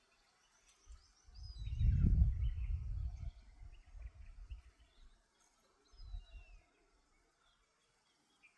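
Birds chirping faintly in the open, with a loud low rumble swelling for about two seconds near the start and again briefly around the middle.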